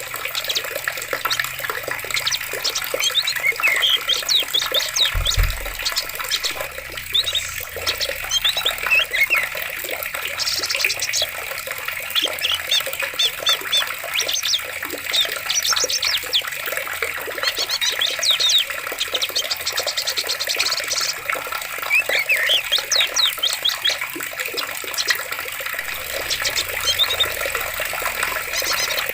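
Running water, a steady wash, with many small birds chirping and calling over it in quick, repeated phrases. There is a brief low thud about five seconds in.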